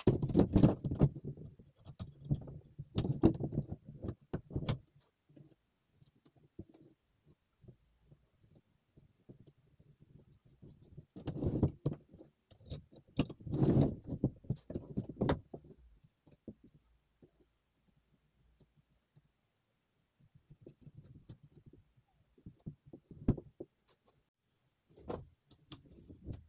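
Metal parts of a small bench vise being handled, knocked and slid on a wooden workbench: bunches of clanks, clinks and scrapes in three spells, with quiet pauses between.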